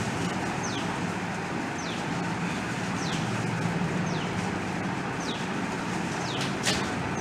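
IBell Deluxe tower fan running, a steady rush of air over a low motor hum. A bird's short falling chirp repeats about once a second over it, and a sharp click sounds near the end.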